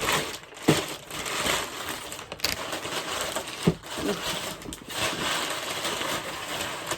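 Bubble wrap packaging being handled and unwrapped: continuous plastic crinkling and rustling, with two sharper clicks, one near the start and one about halfway through.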